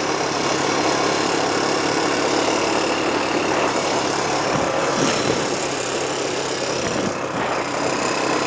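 A vehicle engine running steadily at an even speed.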